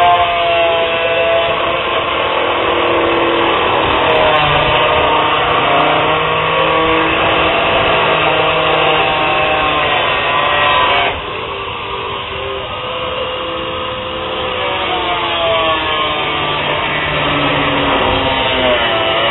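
Handheld electric power tool cutting and grinding a plastic car grille, its whine wavering up and down in pitch as the load changes. The level drops suddenly about 11 seconds in, then builds again toward the end.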